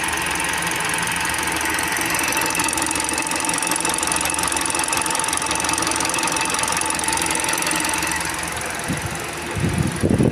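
Car engine idling with a rapid, steady ticking from the valve train: tappet (lifter) noise. Some louder low rumbling comes in near the end.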